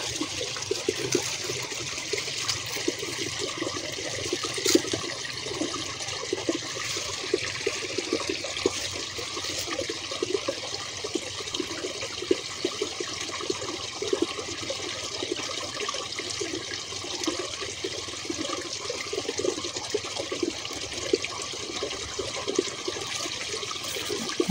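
Steady trickle of water running in a small irrigation ditch.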